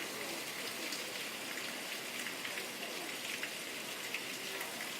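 Steady rain falling and pattering on surfaces: an even, unbroken hiss.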